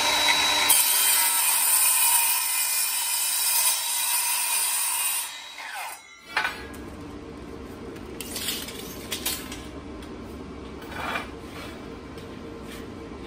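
Milwaukee Fuel cordless sliding miter saw cutting through aluminum angle, a loud high-pitched cutting noise for about five seconds before the blade winds down. A sharp click follows, then a few light knocks and rustles.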